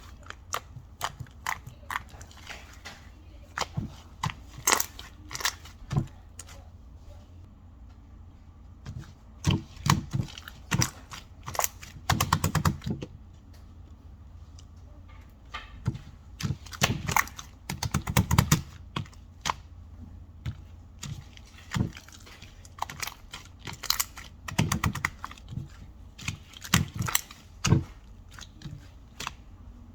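Irregular clicks, taps and thuds of small objects being handled, some coming in quick clusters, over a steady low hum.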